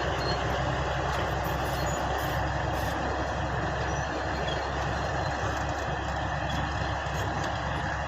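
Komatsu D155A crawler bulldozer's diesel engine running steadily.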